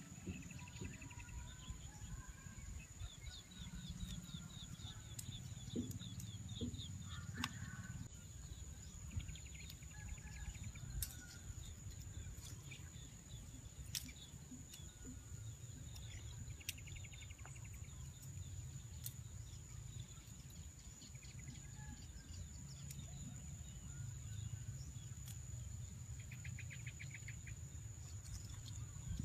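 Faint natural ambience: birds calling in short repeated trills and a steady high insect whine over a low, steady rumble, with a few scattered clicks.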